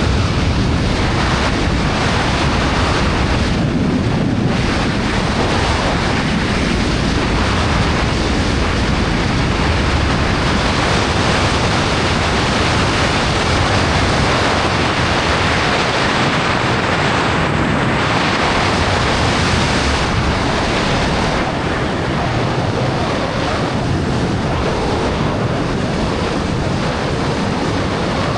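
Loud, steady rush of wind buffeting the microphone, the airflow of a wingsuit flight.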